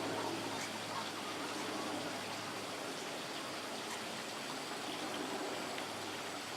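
Steady rush of running water, like a stream or small waterfall, with a few faint high ticks over it.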